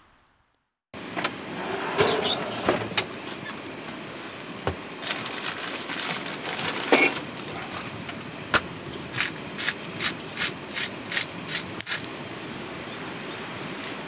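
Steady rain begins falling after a second of silence, with drops tapping sharply on a surface throughout, coming about two or three a second in the second half.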